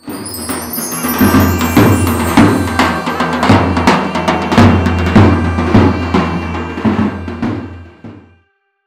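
Intro music with a steady drum beat over a bass line, fading out near the end.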